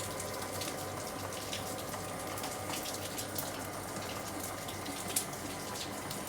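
Heavy rain falling: a steady hiss of water with many sharp drop impacts close by.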